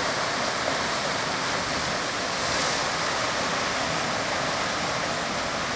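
Waterfall pouring into a churning whitewater pool: a steady, even rush of falling water.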